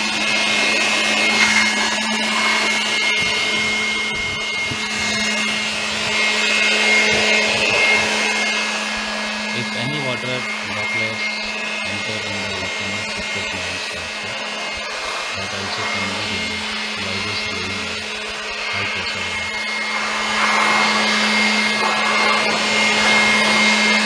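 Handheld electric air blower running steadily, a rush of air over a steady motor hum, blowing water droplets off the washed coils and fins of a window AC unit to dry it.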